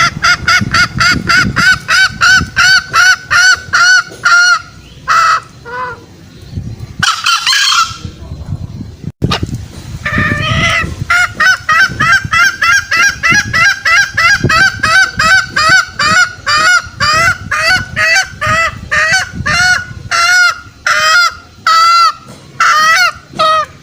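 Green junglefowl lure call: long runs of short, pitched clucking notes, about four a second. The notes break off around four seconds in, with a brief rustling burst and a click in the gap, then resume at about ten seconds.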